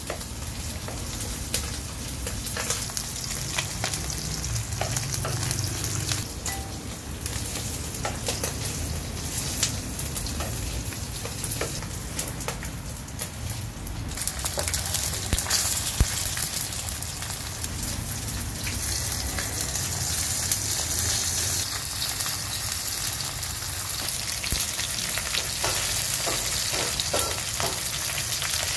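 Small whole fish shallow-frying in hot oil in a pan: a steady sizzle with scattered pops and crackles, growing a little brighter about halfway through.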